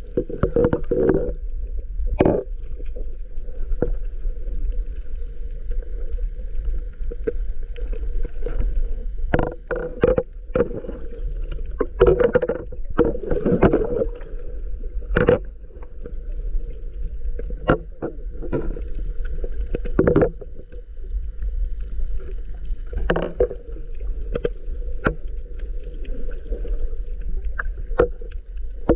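Muffled underwater sound picked up by a camera: a steady low rumble with irregular muffled bursts and sharp clicks.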